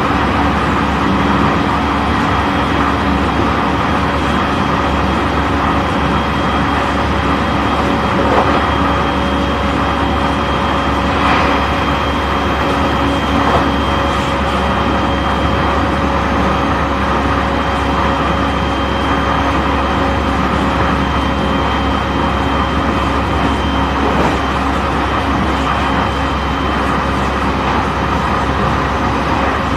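JR East E531 series electric train running steadily at speed, heard from inside a motor car: an even running noise of motors and wheels on the rails with a steady hum, and a few light knocks about 8, 11, 13 and 24 seconds in.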